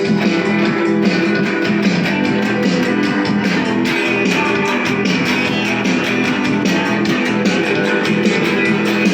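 Music led by plucked guitar, steady in level throughout.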